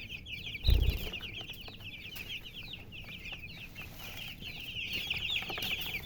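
Many chicks peeping together, a continuous stream of short, high, falling peeps overlapping one another. A loud low thump sounds a little under a second in.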